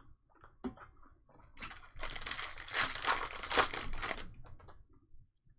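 A trading card pack wrapper being torn open and crinkled: a few small clicks, then about two and a half seconds of crackly tearing and crinkling.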